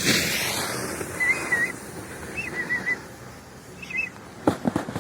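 A small bird calling: three short runs of thin, warbled chirps, a second or so apart. A few sharp clicks come near the end.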